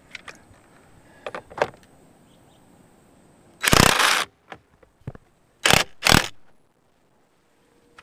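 Cordless power driver run in three short bursts, one of about half a second and then two quick ones close together, driving down the steering wheel's centre retaining nut on the column. A few light clicks of handling come before them.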